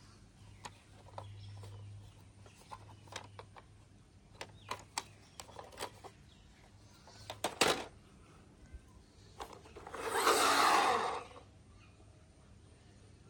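Plastic toy vehicles being handled: scattered light clicks and taps of hard plastic, with one sharper click past the middle. About ten seconds in comes a louder noisy rush lasting about a second, the loudest sound here.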